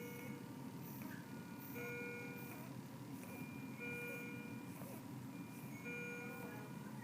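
A short electronic tune of steady beeping tones that repeats about every two seconds, over a steady low hum.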